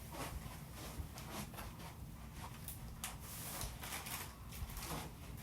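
Faint rustling and scattered light clicks of household items being handled and moved around.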